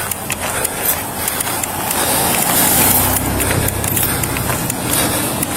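A motor vehicle running under a steady rushing noise, with a low engine hum that grows stronger about halfway through.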